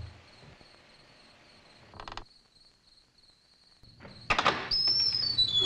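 A door knocks or thuds open about four seconds in and its hinge creaks in a falling squeal, with crickets chirping steadily behind it. A shorter clatter comes about two seconds in.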